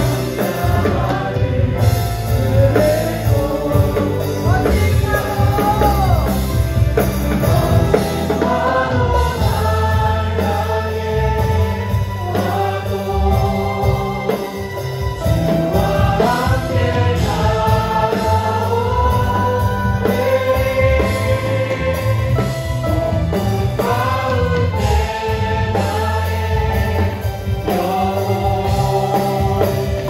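A group of young voices singing a Korean worship song together, accompanied by electronic keyboard with a steady low bass.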